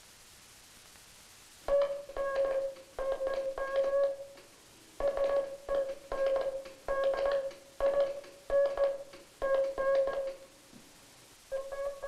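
Morse code keyed on a hand telegraph key, heard as a steady mid-pitched tone switched on and off, starting a little under two seconds in. The key is badly adjusted, so the dits and das run together with little spacing between them.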